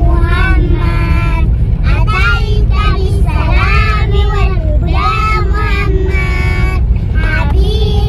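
Children's high voices singing or chanting loudly, with held notes, over the steady low rumble of a car cabin.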